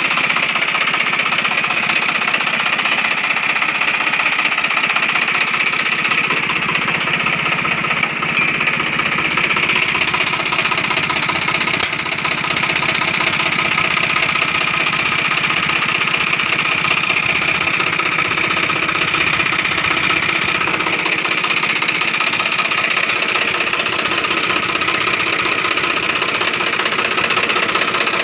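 Swaraj 855 FE tractor's three-cylinder diesel engine idling steadily.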